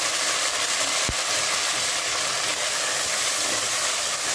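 Chopped tomatoes and onions sizzling steadily in hot oil in an aluminium pressure-cooker pot while a spoon stirs them, with a single dull knock about a second in.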